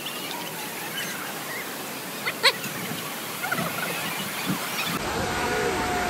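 Steady rush of a monsoon waterfall, with faint voices of a crowd in the background and one brief sharp sound about two and a half seconds in.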